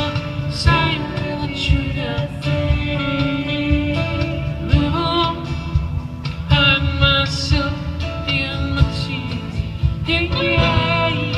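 A live unplugged band performance of a soft ballad: sung vocal phrases over acoustic guitar, keyboard and drums, recorded from the crowd.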